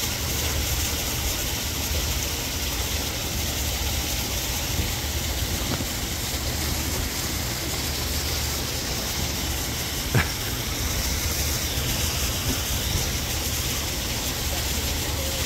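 Steady outdoor background noise: an even hiss over a low rumble, with one sharp knock about ten seconds in.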